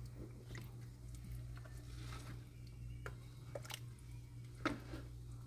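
Scattered light clicks and knocks of a spoon against a cooking pot while stirring, with one sharper knock about four and a half seconds in. A steady low hum runs underneath.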